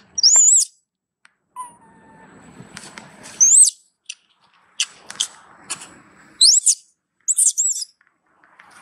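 Young long-tailed macaque crying: several shrill, high-pitched squeals that glide up and down in pitch, a few seconds apart, with short sharp squeaks between. It is a weaning cry, the young monkey begging for its mother's milk.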